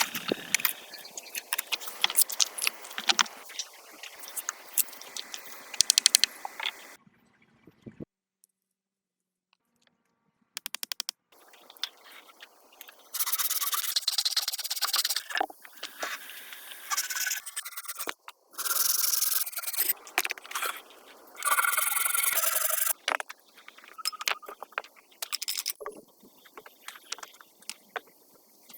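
Repeated scraping and rubbing with scattered clicks, broken by a pause of near silence in the middle, then several longer scraping strokes of a second or two each.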